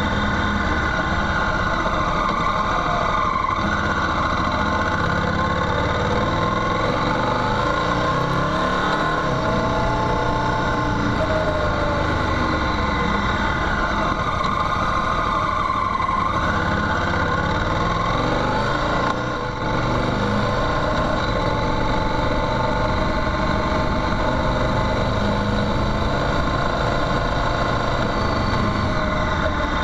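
Motorcycle engine running while riding a gravel track, its pitch rising and falling with the throttle, with a brief drop in level a little before halfway.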